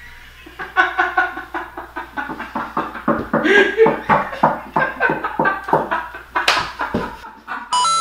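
Two men laughing hard through mouthfuls of water, in short repeated bursts, with a sudden splutter near the end as one spits the water out.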